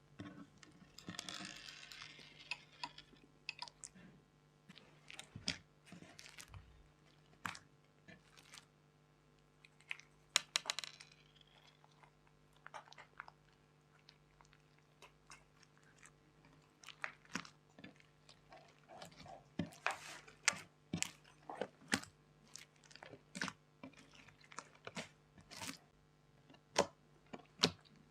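Slime being squeezed, stretched and kneaded by hand, with many irregular sticky pops and clicks and a couple of longer crackling stretches, over a faint steady hum.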